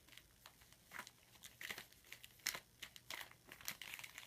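Wrapped trading-card packs crinkling faintly as they are handled and squeezed one after another in the box, in a string of short, irregular rustles and crackles.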